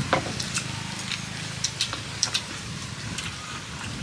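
Scattered light clicks and taps of chopsticks against bowls as people eat, over a steady low rumble.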